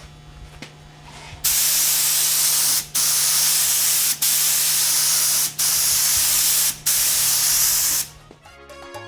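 Finish sprayed onto a table in five long sprays of about a second and a half each, with short breaks between them. Music starts near the end.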